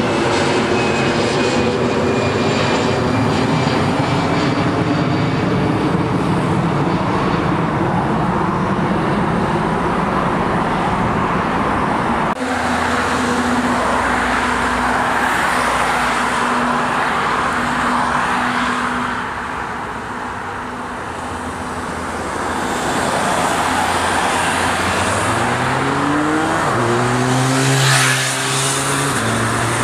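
Jet airliner engines on climb-out after take-off. First an Air France Airbus A320's CFM56 engines, loud overhead, their tone falling slowly in pitch as it draws away. After a sudden cut comes a steady rumble of another take-off, then a second twin-jet airliner climbing overhead, its engine tone sweeping and loudest near the end.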